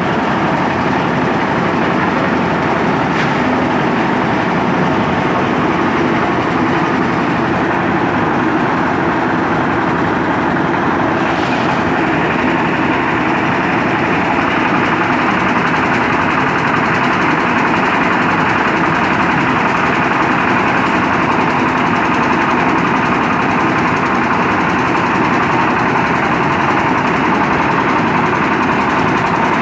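Concrete mixer's engine running steadily at a constant speed.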